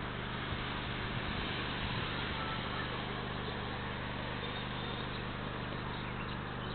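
Steady outdoor background noise from an open-air camera microphone, an even hiss with a constant low hum underneath, unchanging throughout.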